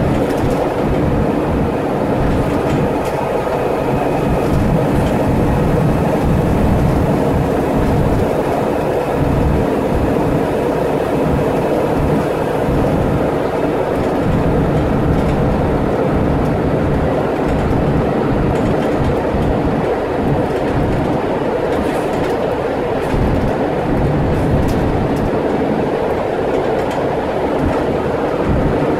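Scania N94UD double-decker bus heard from inside the passenger saloon while under way: the engine runs at a steady drone, with a few held tones over a dense rumble of road and body noise.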